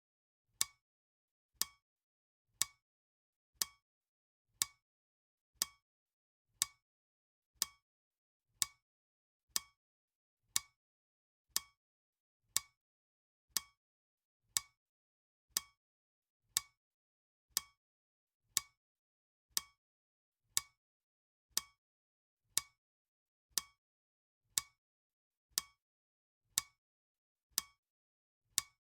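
Clock-tick sound effect of a countdown timer, one sharp tick each second with a faint ring after each, marking off the seconds.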